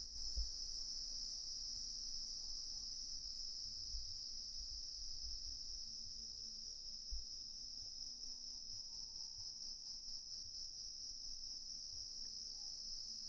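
Crickets chirring in a steady, unbroken high-pitched trill, with a few soft low thuds.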